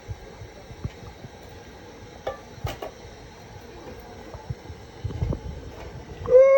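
Scattered light knocks and clatter over a low background, then near the end a loud howl at one steady pitch begins.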